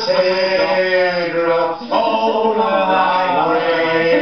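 Older men singing unaccompanied, holding long notes, with a short break about two seconds in.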